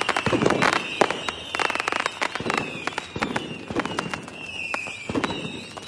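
Fireworks display: rapid, overlapping cracks and bangs of aerial shells bursting, over high whistles that glide down in pitch.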